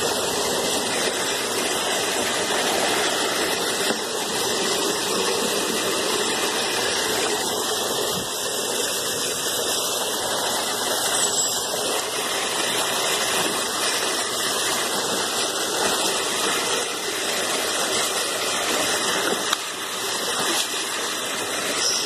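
Steady rush of floodwater running along a flooded street gutter.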